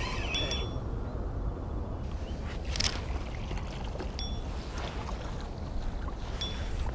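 Wind rumbling on the microphone over lapping water, with a spinning reel cranked briefly at the start. A hooked bullhead catfish splashes at the surface about three seconds in, followed by a few light clicks.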